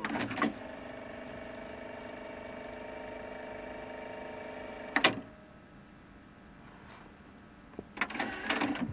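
Akai GX-R60EX cassette deck rewinding tape: clicks of the transport buttons and mechanism, then a steady whirr of the tape winding back. A sharp clunk comes about five seconds in, after which the whirr runs quieter, and more button clicks follow near the end.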